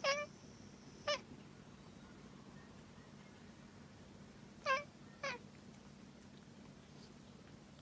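Domestic cat giving four short, high meows in two pairs: two near the start about a second apart, then two more quickly one after the other about five seconds in.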